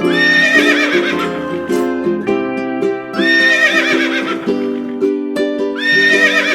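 A horse whinnying three times, each call rising and then quavering, over background music with plucked strings.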